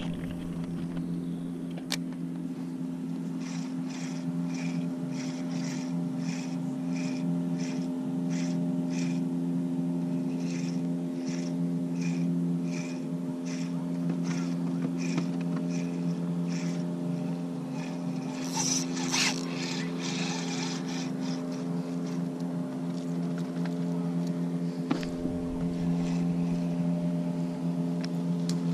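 Small boat motor running steadily with an even hum, pushing the boat slowly along. A light, high-pitched ticking repeats about twice a second through the first half, and a brief hiss cuts in about two-thirds of the way through.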